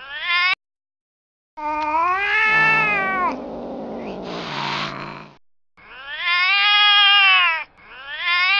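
Domestic cat yowling: long drawn-out calls that rise and then fall in pitch, one after another, with a rougher, noisier stretch between the first two. The sound cuts out abruptly for about a second near the start.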